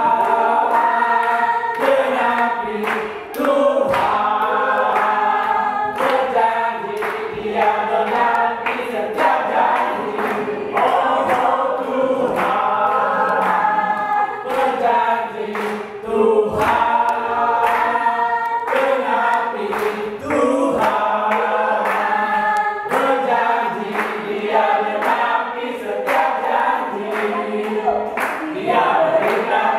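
A church congregation singing a song together, led by a man singing into a microphone, with steady rhythmic hand clapping throughout.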